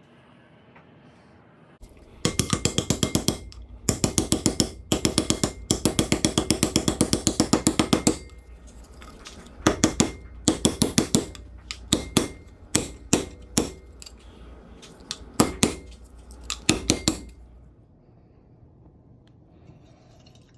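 Bursts of rapid, evenly spaced knocks, about eight a second, each burst lasting a second or two, with a low rumble underneath; the knocking stops a few seconds before the end.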